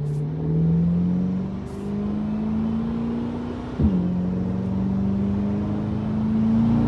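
2026 Corvette Stingray's 6.2-litre LT2 V8 breathing through Atlantic Built cat bypass pipes in Tour mode, accelerating up through the gears: the engine note climbs steadily, drops sharply at an upshift about four seconds in, then climbs again.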